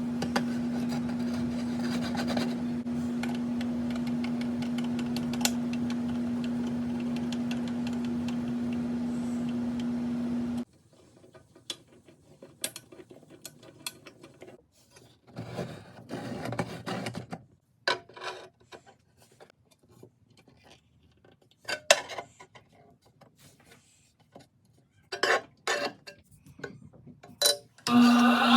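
12-inch Harbor Freight disc sander's motor running with a steady hum, which cuts off suddenly about ten seconds in. Scattered clicks and short rubbing and handling noises follow, separated by silent gaps, and the steady hum returns near the end.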